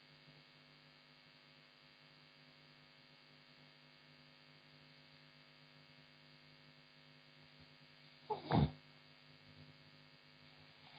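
A woman's single short snore about eight seconds in, after a long stretch of only a faint steady electrical hum.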